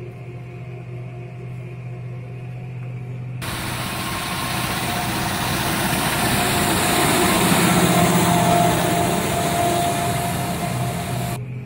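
A tractor pulling a loaded trailer drives past on the road. Its engine and tyres grow louder up to the pass, about eight seconds in, then fade. The first few seconds hold steady background music, which cuts off abruptly when the pass-by begins.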